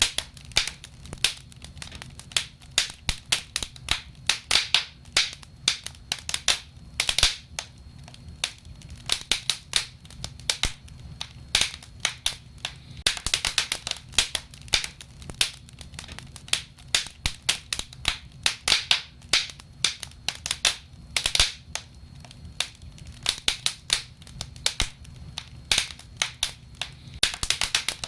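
Wood fire of burning logs crackling and snapping, with many sharp irregular pops, some in quick clusters, over a low steady rumble.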